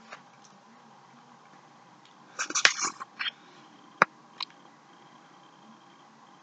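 A metal fork scraping and clicking against a plate while eating: a short flurry of scrapes and clicks a little over two seconds in, then a single sharp click about four seconds in and a fainter one just after.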